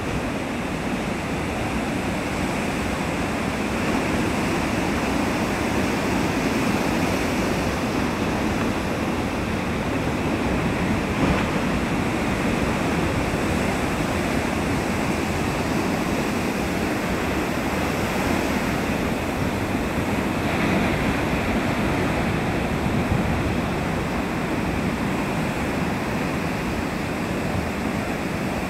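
Heavy ocean surf breaking and washing in, a steady rushing noise of waves without let-up.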